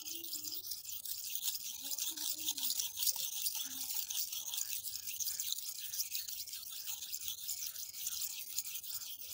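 Steel knife blade stroked repeatedly across a wet red sharpening stone: a steady, gritty scraping hiss of steel on stone.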